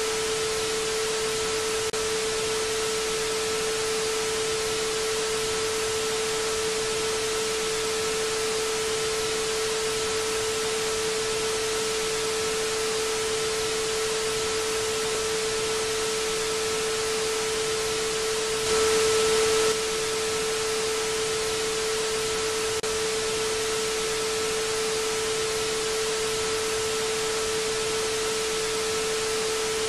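Analog television static: a steady hiss with a constant mid-pitched tone running through it. It swells briefly louder for about a second about two-thirds of the way through.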